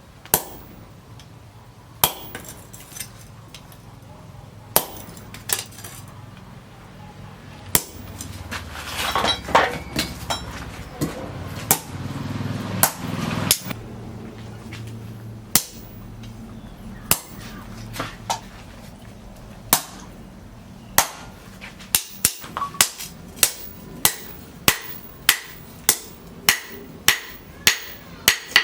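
Hand hammer striking steel on an anvil while forging leaf-spring steel, the blows ringing. They fall one at a time with pauses at first, with a louder stretch of rough, mixed noise in the middle, then settle into a steady run of about two blows a second near the end.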